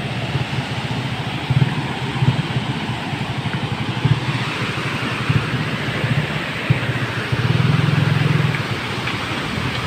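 Turbulent river water rushing below a sluice-gate weir: a steady rush of white water, with a low rumble that swells and fades, strongest for about a second around seven seconds in.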